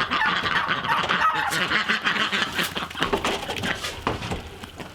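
A flock of farm poultry, ducks and chickens among them, calling and honking all together at feeding time. The chatter is dense at first, then thins out and gets quieter toward the end.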